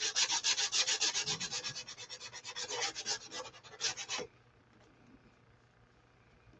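Small handheld finger sander rubbed quickly back and forth along the edges and corners of a sign, a dry scraping at several strokes a second that stops about four seconds in.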